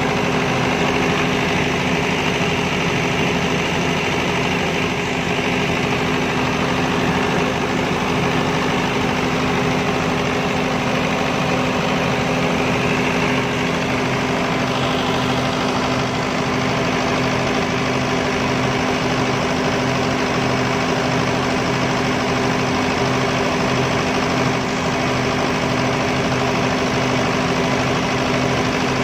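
Diesel generator set running steadily at constant speed, a continuous engine drone with an even hum.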